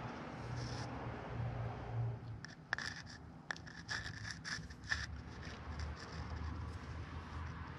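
Multimeter test-lead probes scratching and clicking against the terminals of a DEF dosing injector's electrical connector during a resistance check, with several sharp clicks after about two and a half seconds. A faint low hum comes and goes underneath.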